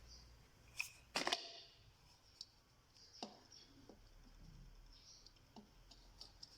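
A few small scattered clicks and taps, the loudest cluster a little over a second in.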